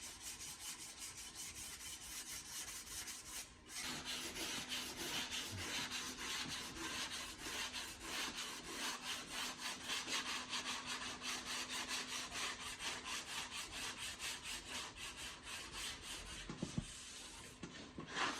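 Hand sanding on a car body panel during body repair: quick, even back-and-forth abrasive strokes, with a brief pause about three and a half seconds in and a faint steady hum beneath.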